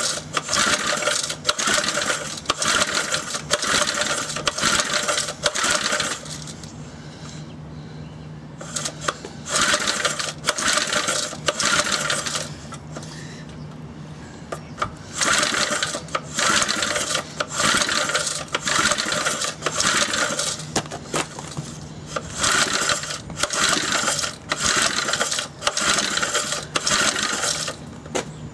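Briggs & Stratton 2 hp single-cylinder engine being cranked by hand on its recoil pull-starter, one pull about every second, in three runs with short pauses about 6 and 12 seconds in. It turns over without ever catching: the freshly rebuilt engine has a damaged cylinder.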